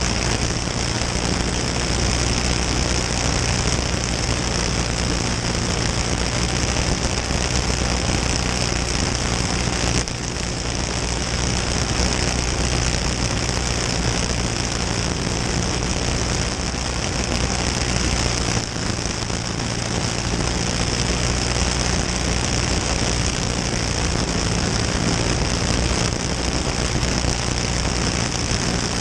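Caged dirt-oval champ kart's single-cylinder engine, heard on board at racing speed, running hard steadily. It eases off briefly about ten seconds in and again about nineteen seconds in.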